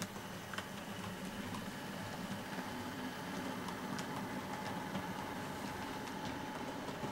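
Bachmann Class 47 model diesel locomotive running past on the layout with its single coach: a steady, quiet motor hum with scattered light clicks from the wheels on the track.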